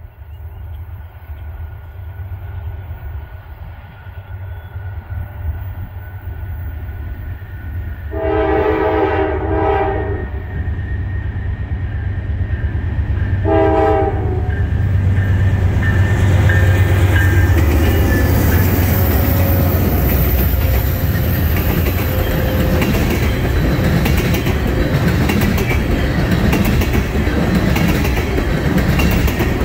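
Norfolk Southern oil train approaching and passing. The diesel locomotives' rumble builds, then their air horn sounds a long blast about 8 seconds in and a short one about 13 seconds in. After that the tank cars roll by with steady wheel noise and regular clicking over the rail joints.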